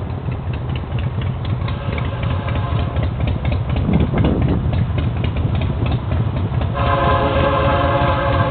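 Diesel freight locomotive horn blowing as the train approaches the crossing, faint at first and sounding loud and full from about seven seconds in. Under it a road-crossing warning bell clangs in a quick steady beat over a low rumble.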